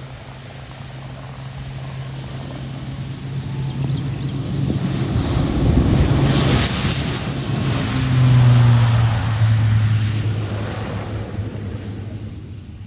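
Airbus C-295M twin turboprop passing close by: the propeller drone and engine noise build up, peak, then fade away. The propeller tone drops in pitch as the aircraft goes past.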